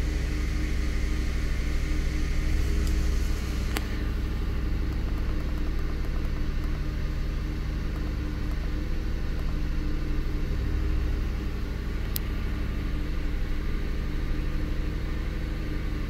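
2008 Ford F-150's 4.6-litre SOHC V8 running steadily at a raised idle of about 1500 rpm, held up by the scan tool's EVAP holding-vacuum test. Two faint clicks come about four seconds in and again near the end.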